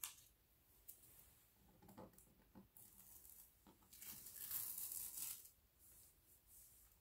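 Green plastic stencil being peeled up off a painted wooden sign. A few light taps and rustles come first, then a soft tearing rasp of about a second and a half past the middle as the stencil comes away from the surface.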